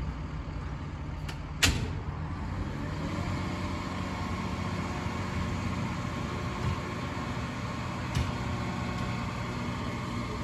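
Boom truck's engine running at a steady speed, powering the crane's hydraulics while the telescopic boom raises and extends. There is a single sharp knock about a second and a half in and a lighter one later on.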